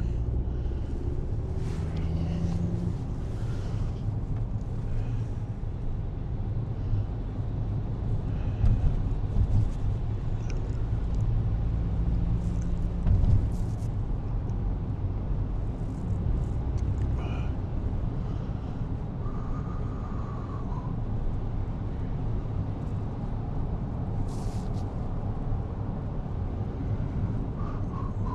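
Steady low rumble of a car heard from inside its cabin while driving: engine and road noise, with a few light clicks.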